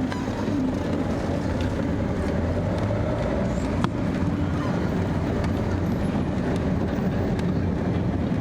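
Steady low rumble and road noise of a moving vehicle, with a single sharp click about four seconds in.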